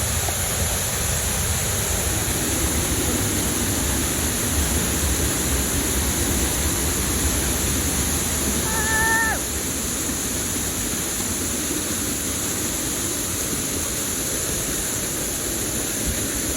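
Waterfall running, a steady rush of falling water. About nine seconds in, a single brief high-pitched call sounds over it.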